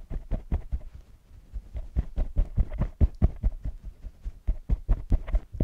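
Fingertips tapping rapidly on both collarbones through a cotton hoodie: a quick, slightly uneven run of dull thumps, about five or six a second.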